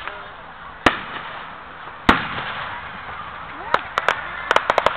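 Aerial fireworks shells bursting: a sharp bang about a second in and a louder one about two seconds in, then a fast run of crackling pops near the end.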